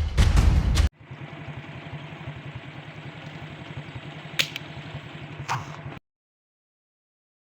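Percussive music stops abruptly about a second in. A steady low mechanical hum, like an idling engine, follows, with two sharp clicks about a second apart. The sound cuts out completely near the end.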